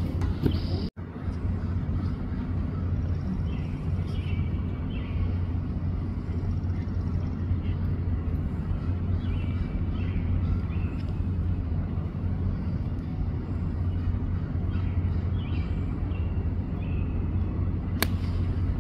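A golf iron strikes the ball once near the end, a single sharp click of the shot, over a steady low outdoor rumble.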